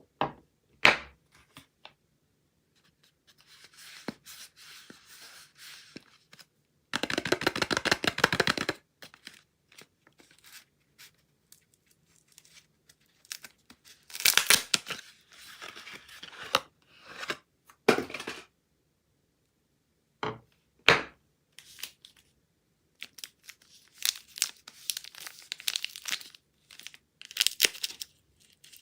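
Soap packaging being torn open and crinkled by hand, in irregular bursts of tearing and rustling with short snaps, with a long, loud tear about seven seconds in and quiet pauses between handlings.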